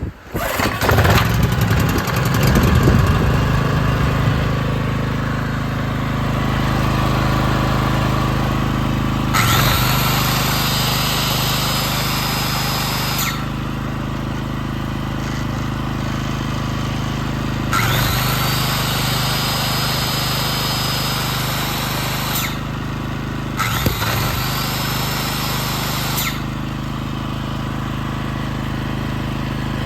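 Suzuki SV2300H portable generator's engine catching at the start and settling into steady running. Three times it is loaded by an electric tool that spins up with a rising whine to a high steady tone and cuts off sharply, and the engine sags briefly as each load comes on.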